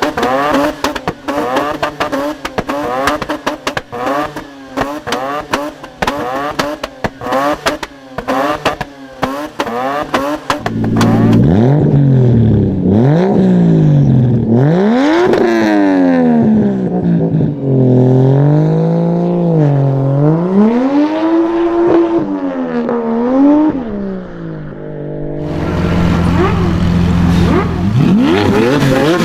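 Modified car exhausts at high volume. First a rapid, dense run of pops and crackles over short blips of the throttle. Then, after a sudden change, a second car's engine is revved up and down several times, settles to a steady idle, and rises in one more rev near the end.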